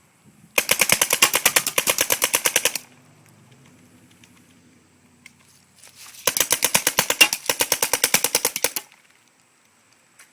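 Tippmann Gryphon CO2 paintball marker fired in two long, fast strings of shots, the trigger walked rapidly with two fingers, with a pause of about three seconds between the strings.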